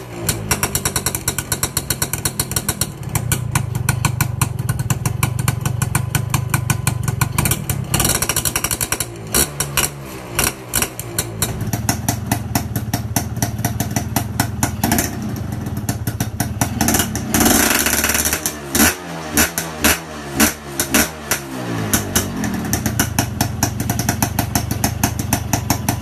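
Two-stroke single-cylinder Yamaha 125ZR engines with barrel-type aftermarket exhausts, revved on the stand in repeated blips. Between the blips they fall back to a fast, sharp popping idle. Two bikes are heard in turn.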